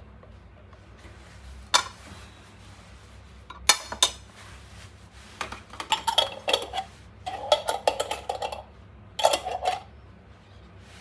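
Metal spoon and kitchen utensils clinking and scraping against dishes and a glass jar. There is a single sharp click about two seconds in and a couple of loud clinks near four seconds, then a run of clattering and scraping through most of the second half.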